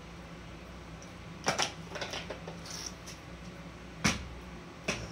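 A few light knocks and clicks of objects being handled by hand, the sharpest about four seconds in, over a steady low hum.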